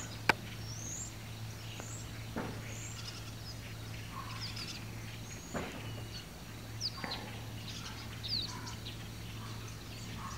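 Birds chirping in short, high calls scattered over a steady low hum, with a sharp click near the start.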